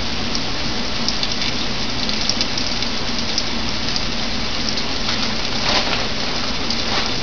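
Flour-coated swai fish fillets frying in hot oil in a cast iron skillet: a steady sizzle with small scattered crackles and pops.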